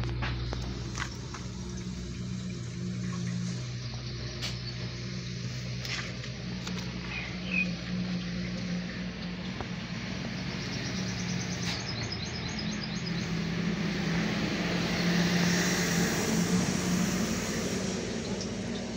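An engine running steadily, with a few light metallic clicks and clinks from hub and bearing parts being handled in a metal basin.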